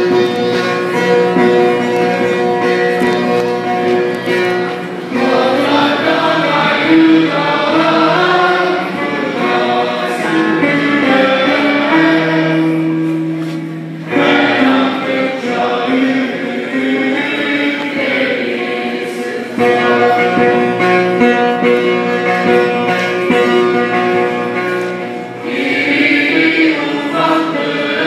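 A choir of students singing a Turkish folk song (türkü) with plucked string accompaniment. The instrumental accompaniment is held alone at first, and the voices come in about five seconds in and sing in several phrases.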